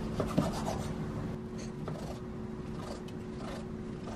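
Chef's knife slicing through a seared steak and tapping on a wooden cutting board: a few soft knocks, most of them in the first second, over a steady low hum.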